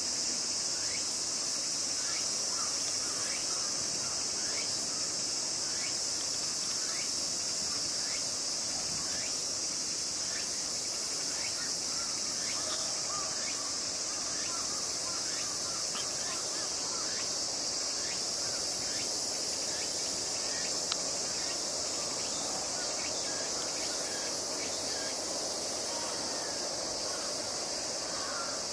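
Steady high-pitched insect chorus, with many short falling chirps over it.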